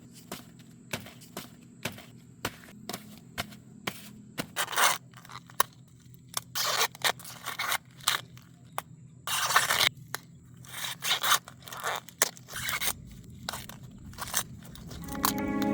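Corn plants being handled as ears are picked: many short sharp snaps and several longer rasping, tearing rustles of the leaves and husks. Music starts at the very end.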